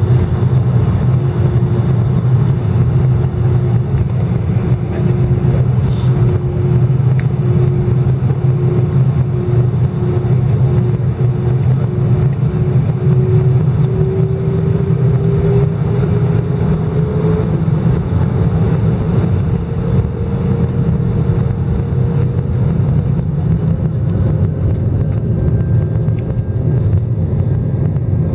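Cabin noise of an Airbus A319 taxiing, heard from a window seat over the wing: a steady, heavy rumble of the jet engines, with a tone in it that climbs slowly in pitch around the middle.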